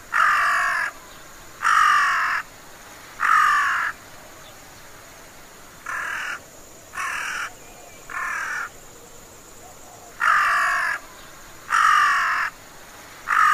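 Collared crow (white-necked crow) calling: nine hoarse caws, each under a second long, in three groups of three, with the middle group fainter. The calls are higher-pitched than those of the carrion crow or large-billed crow.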